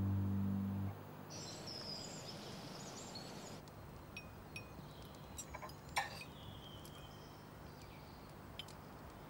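Background music ends about a second in, then quiet, scattered clinks of cutlery against plates and dishes at a breakfast table, with one sharper clink about six seconds in.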